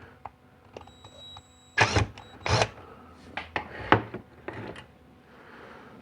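Metal clinks and knocks of hand tools and fuel-rail parts being handled while a fuel line is worked off the rail. The loudest knocks come about two seconds in, with a brief faint metallic ring just before them.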